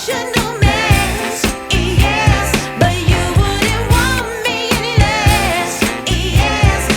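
Background pop song with a steady drum beat and a singer.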